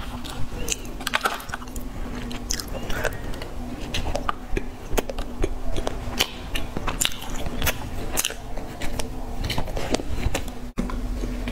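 Close-miked eating of soft chocolate sponge cake: the cake pulled apart in its plastic tray, bitten and chewed, with many sharp, irregular clicks and a momentary drop-out near the end.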